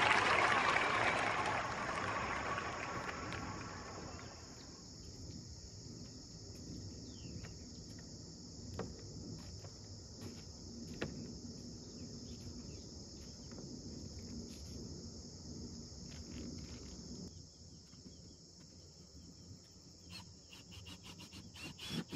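Crickets trilling steadily, a high even insect chorus, with a few faint clicks. At the start a loud rushing hiss fades out over the first four seconds.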